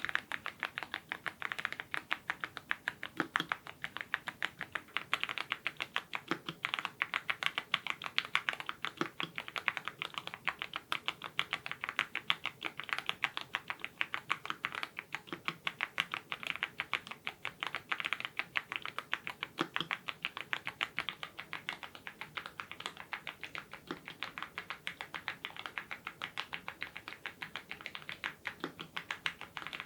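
Fast, steady typing on a YUNZII IF99 full-size mechanical keyboard fitted with lubed Gateron Ink Red linear switches, with a deeper key stroke every couple of seconds.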